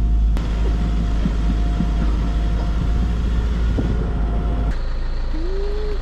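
Vehicle driving on a rough off-road track: a steady low rumble of engine and road noise, which changes character abruptly about half a second in and again near the end.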